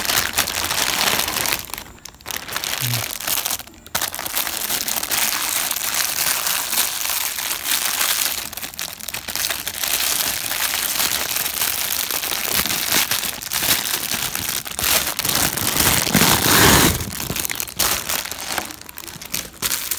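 Clear plastic bag crinkling and rustling as hands pull it open, with brief pauses about two and four seconds in and the loudest rustling near the end.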